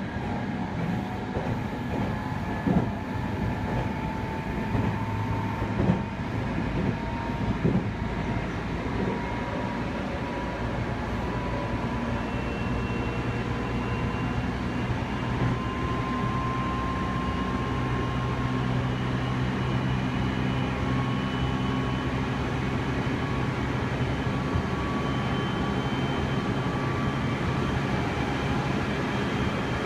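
Cabin running noise of a Meitetsu 3100 series electric train: a steady rumble of wheels on rail under a faint traction-motor whine that slowly rises in pitch. A few sharp knocks from the wheels come in the first several seconds.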